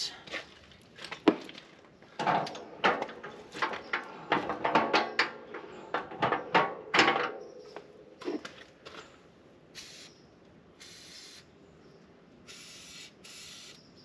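Metal pivot joints on snow equipment knock and creak in a quick, irregular run for about eight seconds as they are worked. Then an aerosol can of Fluid Film lubricant gives four short hissing sprays onto the moving joints.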